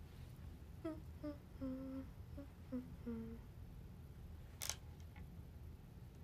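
A woman humming a short tune of about six quick notes with her mouth closed, the second-to-last and last notes held a little longer. About a second after the tune ends there is a single brief click.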